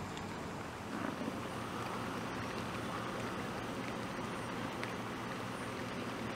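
Steady low hum of an idling vehicle engine under outdoor noise. A faint low grunt from an American bison comes about a second in.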